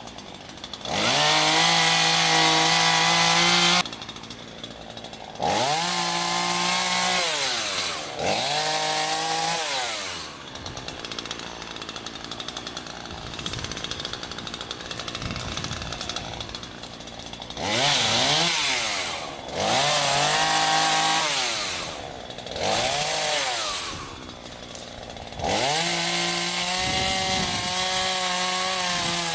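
Gas chainsaw revved to full throttle again and again, each burst lasting a few seconds, dropping back to idle between bursts, with a longer idling stretch in the middle.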